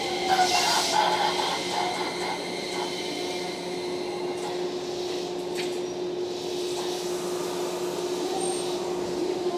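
Stopped electric trains idling at a platform: a steady low hum from the onboard equipment. A train moves along the next track, loudest in the first second, and there is a single sharp click about halfway through.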